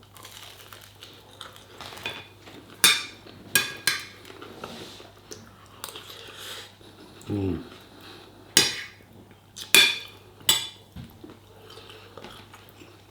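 Cutlery clinking against a plate while eating, about six sharp clinks spread out with pauses between, and a short vocal sound about halfway.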